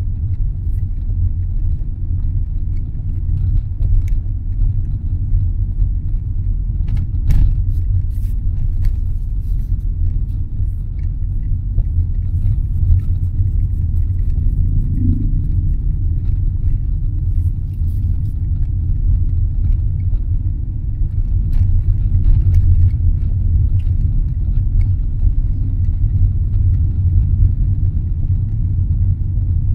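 Steady low rumble of a car on the move, with a few faint clicks.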